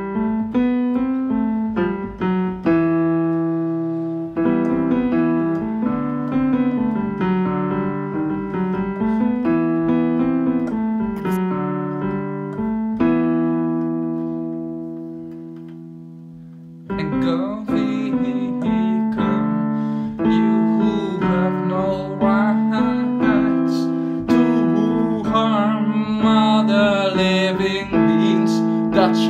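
Piano music playing a melody over chords; about halfway through a long held chord dies away, then the playing starts up again, fuller.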